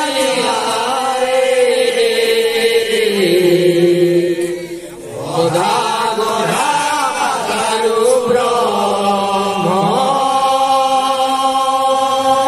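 A group of men chanting an Odia devotional kirtan together, holding long notes that slide up and down, with a brief break about five seconds in.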